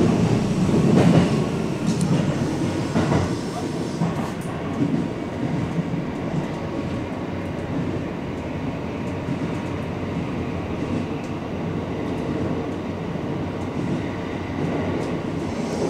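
Electric commuter train running along the track, heard from inside the leading car: a steady rumble of wheels on rail, with a few rail-joint clicks in the first few seconds.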